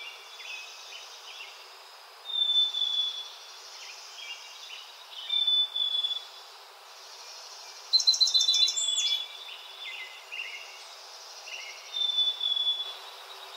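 Birds calling in short high phrases repeated every few seconds, with a louder run of quick notes about eight seconds in, over a steady high insect buzz.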